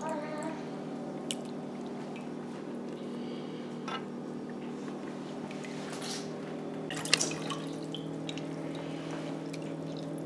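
Whey dripping and splashing back into a pot as handfuls of fresh cheese curds are lifted out and squeezed, with a few small splashes, one about seven seconds in. A steady low hum runs underneath.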